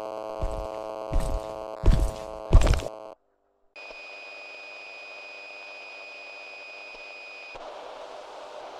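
A steady buzzing hum broken by four short, sudden bursts of noise, each louder than the last. It cuts to a moment of silence, then a steady high-pitched electronic tone over a hiss, which stops shortly before the end and leaves only the hiss.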